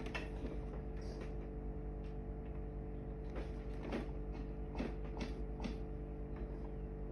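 A few faint knocks and rustles of hands handling a glued part, over a steady hum of several fixed tones.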